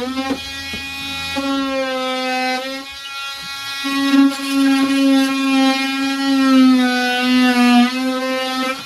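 Power drill motor running at a steady buzzing whine, easing briefly about three seconds in, then winding down in pitch as the trigger is released at the end.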